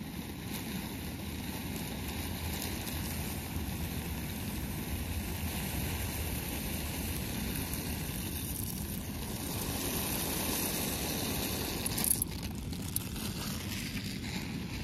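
Gas camping stove burner running steadily under a pot of boiling water, turned up high. A few short knocks come about twelve seconds in.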